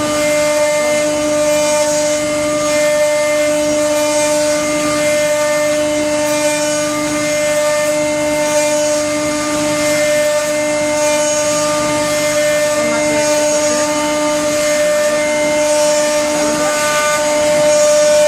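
CNC router spindle running at a steady speed and cutting: a constant high whine over an even cutting noise, with no change in pitch.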